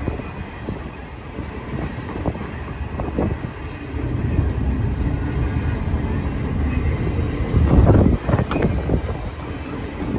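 Norfolk Southern freight train rolling past, a steady low rumble that grows louder about four seconds in, with a stronger surge near eight seconds.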